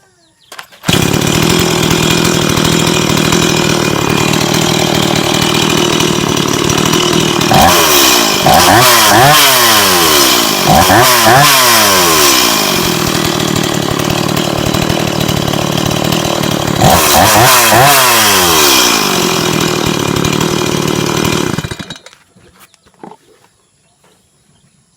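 Stihl MS 170 two-stroke chainsaw engine starting up about a second in and running. The throttle is blipped in a series of rising and falling revs twice, and the engine is shut off near the end.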